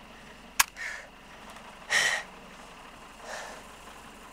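Three gasping breaths, the loudest about two seconds in, with one sharp crack about half a second in.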